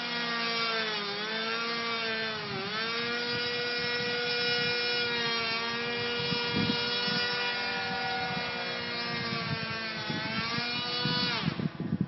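O.S. .46 glow engine of a radio-controlled Seagull P-51 Mustang model running at high throttle in flight, a high buzzing note with its pitch dipping and recovering a few times as the plane manoeuvres. The engine sound drops away shortly before the end.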